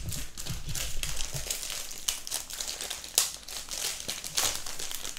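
Clear plastic wrapping crinkling and crackling as it is peeled off a hardcover notebook, with louder crackles about two, three and four seconds in.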